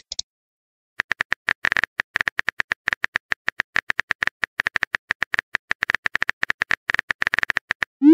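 Chat-app typing sound effect: rapid, evenly paced keyboard clicks that start about a second in and run for nearly seven seconds while the next message is being 'typed'. A short rising pop comes at the very end as the message appears.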